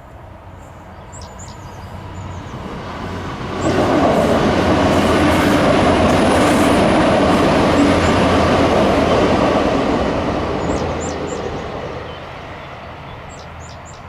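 A train crossing the rail bridge close by. Its noise builds over a couple of seconds, stays loud for about six seconds, then fades away. A few birds chirp faintly before and after the loudest part.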